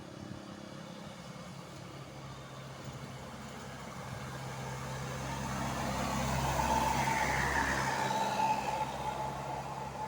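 A motor vehicle approaching and passing close by: its engine grows louder to a peak about seven seconds in, with a tone that slides down in pitch as it goes past, then fades.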